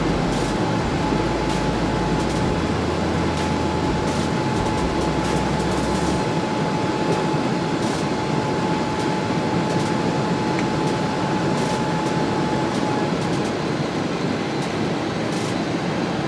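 Cabin noise of a jet airliner climbing out after takeoff: a steady rush of engine and airflow noise, with a deep rumble that eases about six seconds in and a thin steady whine that fades away about thirteen seconds in.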